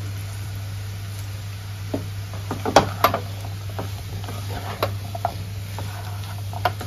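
Wooden spatula stirring and scraping poha in a nonstick frying pan, with a handful of short knocks against the pan, mostly in the middle of the stretch. A steady low hum runs underneath.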